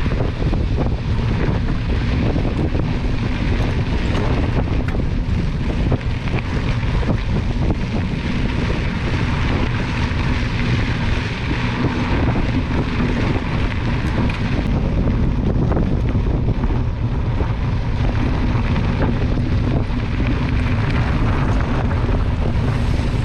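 Wind buffeting the microphone: a steady, loud rumble with a hiss above it.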